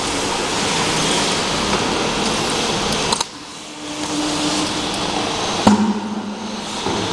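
Automatic labeling machine and conveyor running: a dense rushing machine noise that drops off suddenly about three seconds in, then a steady hum with one sharp click a couple of seconds later.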